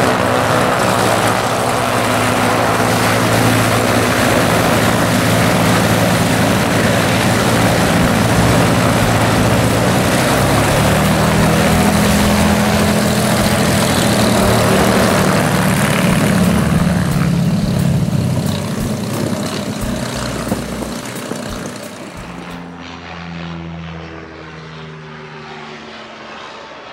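Cessna 310J's two six-cylinder piston engines and propellers running at taxi power close by: a steady drone that swells as the aircraft turns, then fades as it taxis away. About four seconds from the end it cuts to a quieter, duller recording.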